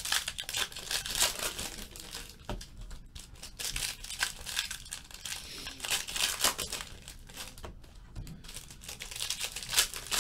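Trading-card pack wrappers being torn open and crinkled by hand, in irregular crackling bursts.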